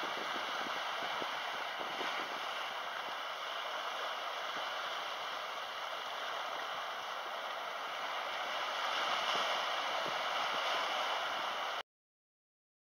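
Small waves washing and splashing over a low rock in open water, a steady rushing slosh that swells slightly about nine seconds in and cuts off suddenly just before the end.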